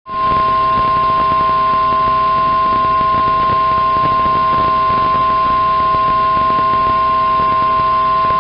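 Weather Radio Canada warning alarm tone: a single loud, steady high tone of about 1050 Hz over radio hiss, starting abruptly. It is the attention signal that a warning message follows.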